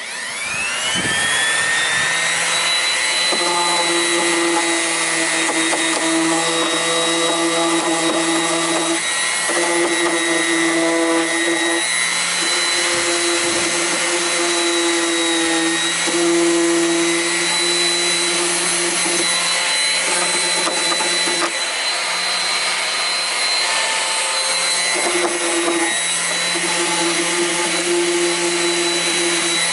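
Electric sander with 120-grit paper starting up, its motor winding up over the first two seconds, then running steadily with a high whine while smoothing the cut edges of the basket holes.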